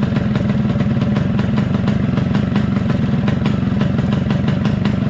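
Yamaha RX-King's single-cylinder two-stroke engine idling steadily with an even, pulsing exhaust beat.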